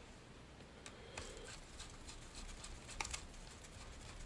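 A few faint clicks and taps of small parts and a hex screwdriver being handled while screwing a suspension link onto a radio-controlled car's chassis.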